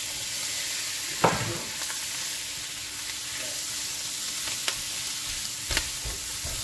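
Raw shrimp sizzling as they go into a hot frying pan of corn in butter and olive oil; the sizzle jumps up as they hit the pan. There is a thump about a second in, then a few light clicks of a silicone spatula stirring the pan.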